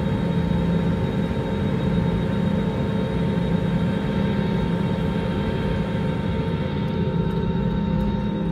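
Airbus A320-200's jet engines running at low taxi power, heard inside the cabin: a steady hum with a few constant whining tones.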